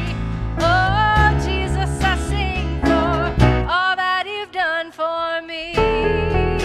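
Contemporary worship band playing a song, with a sung melody over guitar and a steady bass; the bass drops out for about two seconds past the middle, leaving the voice and upper instruments, then comes back in.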